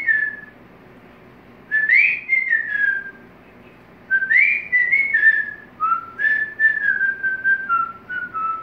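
African grey parrot whistling a tune in several short phrases of clear, sliding notes, with brief pauses between the phrases.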